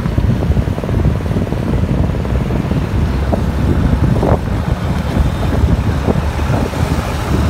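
Low rumble of a vehicle driving along a road, with wind buffeting the microphone throughout.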